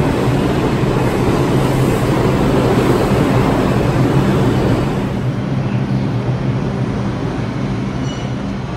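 R142 New York subway train running, a steady noise of the cars in motion with a low hum underneath; it turns slightly quieter and duller about five seconds in.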